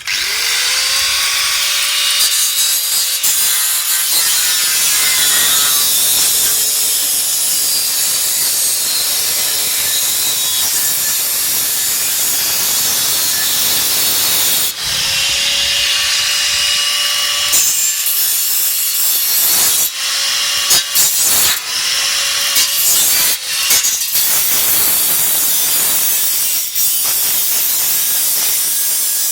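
Angle grinder cutting metal: a loud, continuous hissing grind. The motor's whine rises as it spins up at the start, and it stops and restarts about halfway, with several brief cut-outs and restarts after that.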